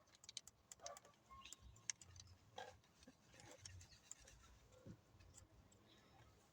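Faint, scattered clicks and taps of a wrench and socket tightening the steering-wheel retaining nut, with one sharper click about two seconds in.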